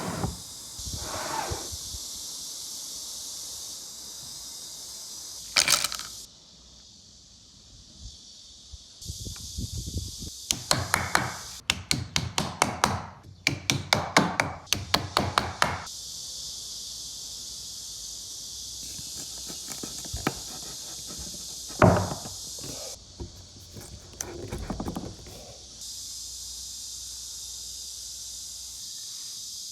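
Wood being struck with sharp knocks and taps: a single knock about six seconds in, a quick run of taps at about four a second lasting several seconds, then a hard knock and a few lighter ones near the end. Under them a steady hiss comes and goes abruptly.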